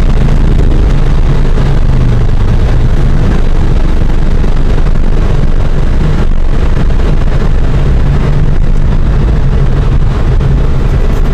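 Inside the cabin of a Volkswagen Golf Mk2 with a 2.0 ABF 16-valve four-cylinder engine, the engine runs at around 4,000 rpm under a dense rush of wind and road noise as the car comes down from its top speed. The sound is loud and steady throughout.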